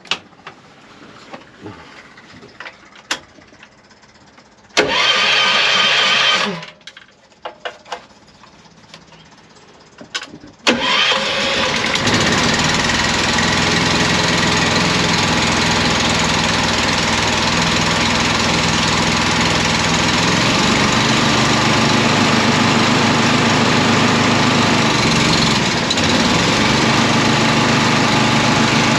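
Air compressor starting up: a short first burst, then about five seconds later it starts and runs steadily and loudly, its pitch shifting slightly twice as it works.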